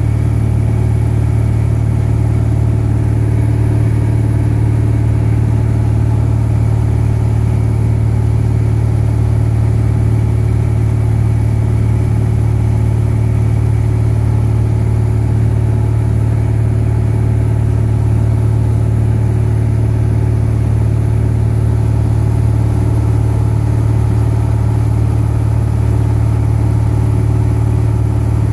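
Piston engine and propeller of a high-wing light aircraft running steadily in level flight, heard from inside the cabin as an even, unchanging drone.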